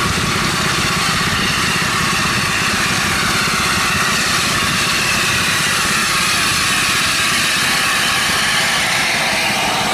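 Austerity 0-6-0ST saddle tank steam locomotive rolling slowly into the platform with its train: a steady rumble and hiss, without a beat.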